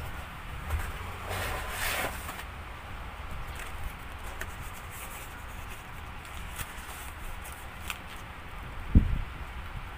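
A cardboard pizza box being handled and opened, its flaps scraping and rubbing with a few light clicks. A single dull thump about nine seconds in.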